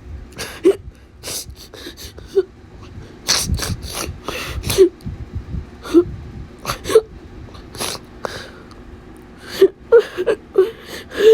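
A person crying: irregular sobbing breaths and sharp gasps with short whimpering voiced sobs, growing choppier and more frequent near the end.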